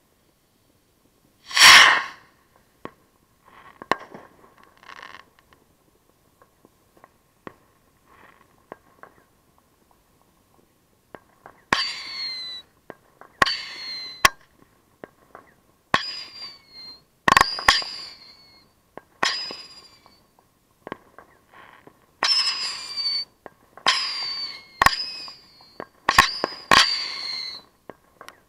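Consumer fireworks going off close to the microphone: one loud bang about two seconds in and scattered small pops, then, from about halfway, a quick run of bursts, each with a short falling whistle, mixed with sharp cracks.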